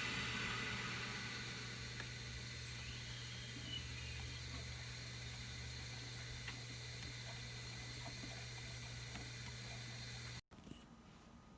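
Steady hiss of water rushing through the household supply pipes as the main shut-off valve is opened gradually, easing off slowly, under a low steady hum and a few faint clicks. It cuts off abruptly near the end.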